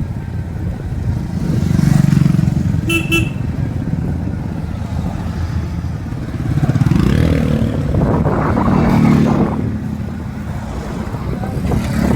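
Motorcycle engine running while riding, with a short horn toot about three seconds in.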